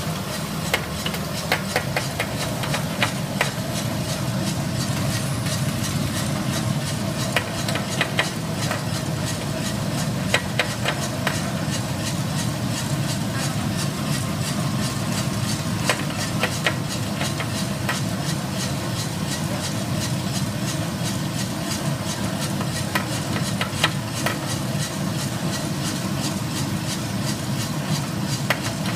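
A 10 kg gas-fired drum coffee roaster running with a steady low mechanical hum, with scattered sharp clicks throughout.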